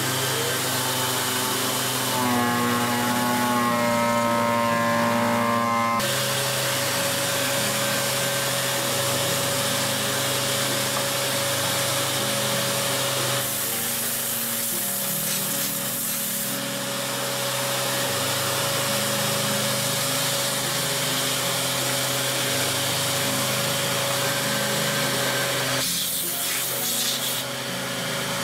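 Electric disc sander with a 240-grit disc running and rubbing across a row of end-grain wood samples held in a sliding jig. The motor hums steadily, with louder hissy stretches about halfway through and again near the end.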